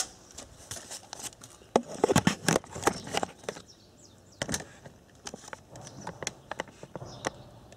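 Irregular clicks and knocks of hard objects being handled, thickest from about two to three and a half seconds in, with a single sharp knock about halfway through and fainter taps after it.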